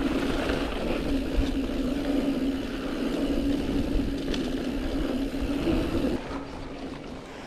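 Mountain bike being ridden on a dirt trail: rough wind rumble on the camera's microphone with tyre noise and a steady low hum. It turns quieter about six seconds in.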